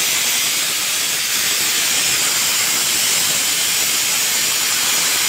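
Pressure cooker on a gas stove venting steam through its weight valve in a loud, steady hiss. This is the cooker's whistle going off, the sign that the rice inside is cooked.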